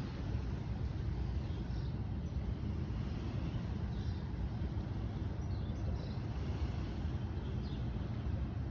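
Steady low rumble of background noise, with faint short high chirps now and then.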